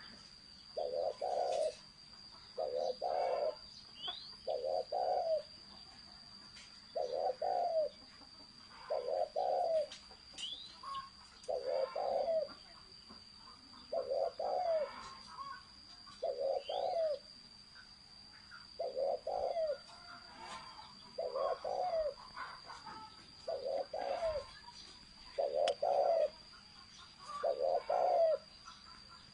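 Spotted dove cooing in the deep 'thổ sấm' voice. A low coo phrase repeats about every two seconds, with faint chirps of small birds and a steady high-pitched whine behind it.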